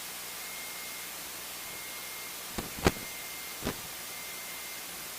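Steady static hiss of a light aircraft's headset intercom audio during a gap in speech, with a faint steady high whine and three short clicks a little past the middle.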